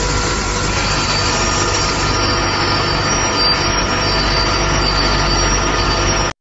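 Steady, loud mechanical noise with a low hum and thin high-pitched squealing tones throughout, cut off abruptly at the end.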